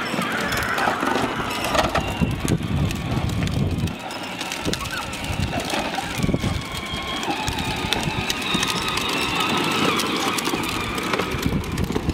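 Kids' ride-on toys (battery-powered toy tractors and a plastic trike) rolling on a concrete driveway: a rough, continuous rumble of hard plastic wheels on concrete, with a faint steady motor whine in the second half.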